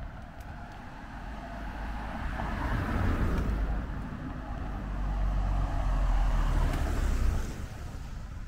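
Cars passing on a road, tyre and engine noise swelling as each goes by: one about three seconds in, then a longer, louder pass from about five seconds that fades away shortly before the end.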